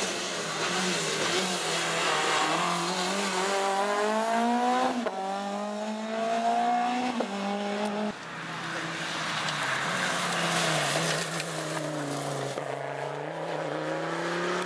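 Citroën C2 rally car's engine accelerating hard, its pitch climbing and dropping back at gear changes about five and seven seconds in. After a cut, another rally car's engine and tyre rush on wet tarmac, the engine note rising again near the end.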